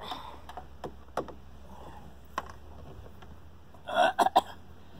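Faint clicks of small screws being taken out of a car's interior door panel. About four seconds in comes a short, loud cough-like sound followed by a couple of sharp clicks.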